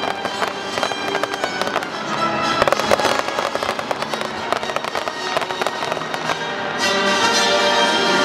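Fireworks going off in a dense run of small pops and crackles, red crackling stars bursting over music. The music gets louder near the end as the crackle thins out.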